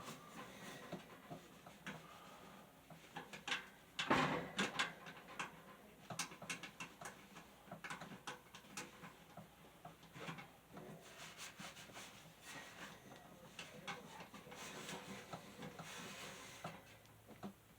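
Hand cleaning of a box fan's housing: rubbing and wiping with scattered clicks and taps as the parts are handled, loudest as a burst of rubbing about four seconds in.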